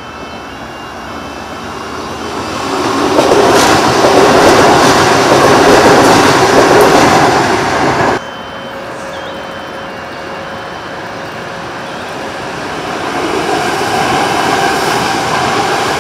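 Adelaide Metro 4000-series Bombardier electric train passing at speed, its wheel-on-rail noise building over a few seconds to a loud rush. The noise drops suddenly about halfway through, and a second electric train is then heard approaching, growing louder near the end.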